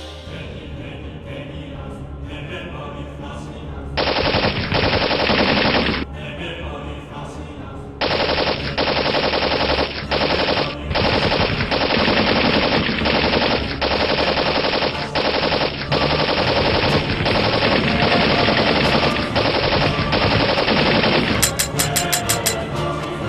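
Loud soundtrack music with rapid, rattling percussion. It steps up sharply about four seconds in, drops back briefly near six seconds, and returns at eight.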